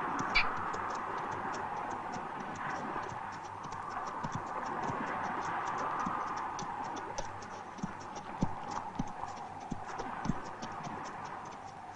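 Horse hooves clip-clopping at a steady walk, about three light clacks a second, with a few duller knocks in the second half, over a steady hiss.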